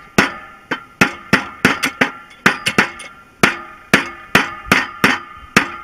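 Hammer driving a lever pin home into a Massey Ferguson 165 two-stage clutch pressure plate: a steady run of sharp metal-on-metal strikes, about three a second, each ringing briefly.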